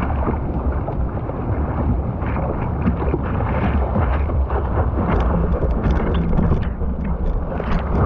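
Wind rumbling on a microphone mounted low on a surfboard's nose, with water lapping and splashing against the board in many short slaps.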